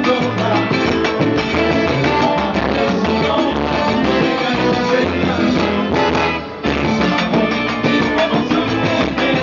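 Live gaita zuliana band playing with keyboard, over a steady beat; the music briefly drops out for a moment about six seconds in, then comes back in.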